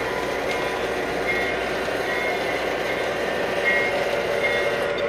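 Sound-equipped model train running on the layout: a steady locomotive engine and rolling sound, with short high beeps recurring about once a second.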